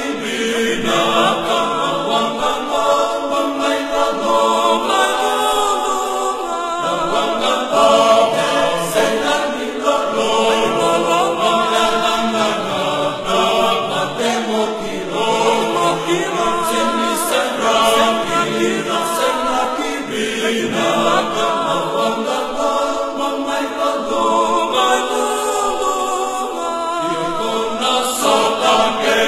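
A choir singing, several voices together in harmony.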